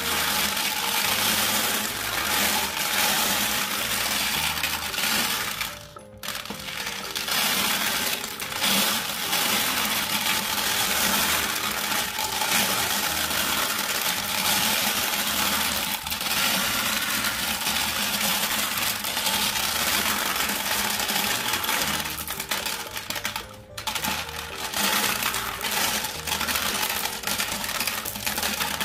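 Glass marbles clattering and clinking inside the turning plastic drum of a toy cement mixer truck and rolling out down its plastic chute, with two short lulls, over background music.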